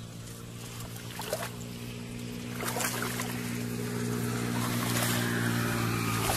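Water splashing and sloshing in irregular strokes as a person wades through shallow muddy water, over a steady low engine hum.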